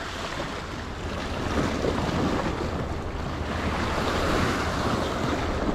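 Sea surf washing in: a noisy wash that swells from about a second and a half in, with wind rumbling on the microphone.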